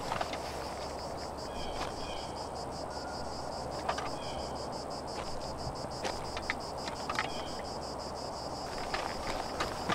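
Insects trilling steadily, a rapid high-pitched pulsing that never lets up, with a few short high chirps and light rustles over a low outdoor ambience.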